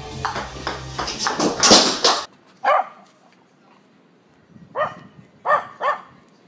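A small dog barking four short times, with pauses between. Before it, in the first two seconds, music with several knocks and one loud burst of noise.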